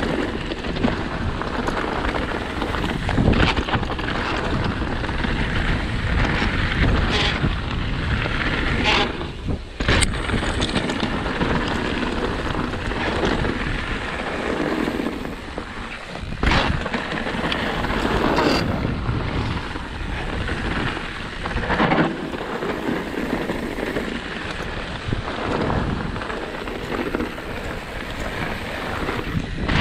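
Specialized Stumpjumper mountain bike ridden fast over a rocky, loose trail: a continuous rough rumble of tyres on stones and the bike rattling, broken every few seconds by sharp knocks as it hits bumps and rocks.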